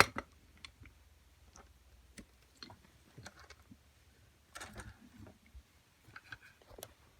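Scattered light clicks and small knocks of a steel padlock being handled and clamped in a bench vise, with a sharp click right at the start and short flurries of handling about halfway through and near the end.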